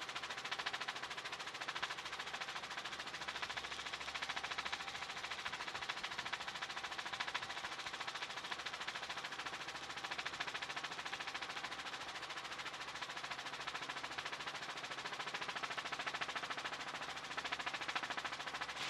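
Rotor chop of a news helicopter heard from on board, a steady, rapid chopping.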